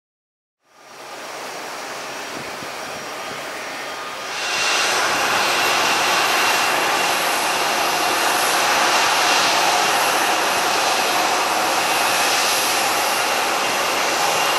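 Jet engines of an Airbus A340-300, its four CFM56 turbofans, running at taxi power: a steady whine over a rushing noise. The sound fades in under a second in and steps up louder about four seconds in.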